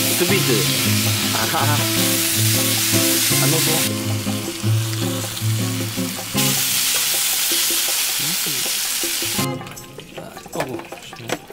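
Pork neck sizzling on a grill pan over a portable gas burner, with tongs moving the meat; the sizzling breaks off about nine and a half seconds in. Background music with steady tones plays underneath.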